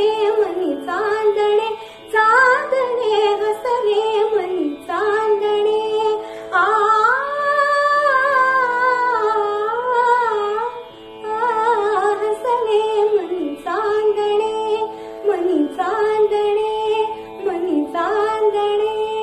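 A woman singing a Marathi song alone, in phrases of gliding, ornamented notes with short breaths between them, over a steady drone.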